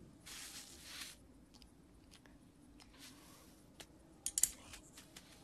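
Sparse cartoon sound effects: a faint sandy hiss in the first second, a few soft clicks, then a quick, sharp crunching snap about four seconds in as a chicken pecks down into the sand hole.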